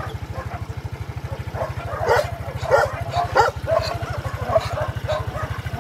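Several dogs barking in short, sharp barks, thickest about two to three and a half seconds in, over an engine running steadily underneath.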